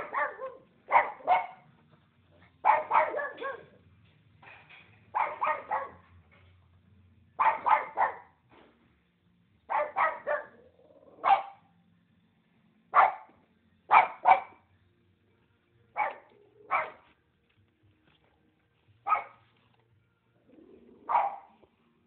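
A dog barking repeatedly, in short bouts of one to three sharp barks every couple of seconds, with brief quiet gaps between bouts.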